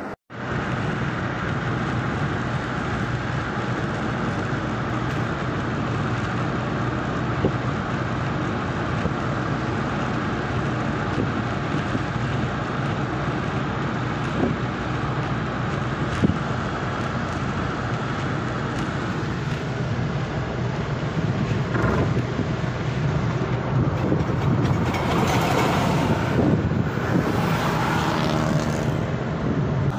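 Car driving at motorway speed, heard from inside the cabin: a steady engine hum under road and wind noise. The rush grows louder for the last several seconds.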